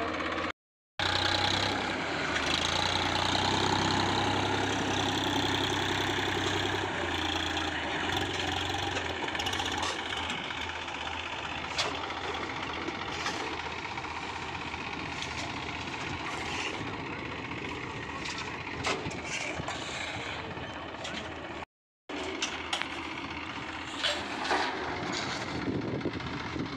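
Massey Ferguson 245 tractor's diesel engine running under load as it drags a rear levelling blade through hard-packed soil, loudest in the first several seconds. Near the end, sharp scrapes and knocks of shovels striking dirt.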